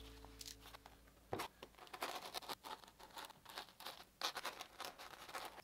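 Small knife blade cutting down into layered Kaizen foam along a traced outline: quiet, irregular scratching and crackling, with a couple of sharper clicks.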